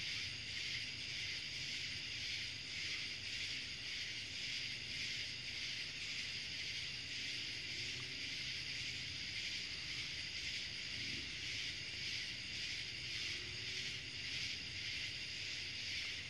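Steady night chorus of insects: a continuous high, shrill drone with an even pulse running through it.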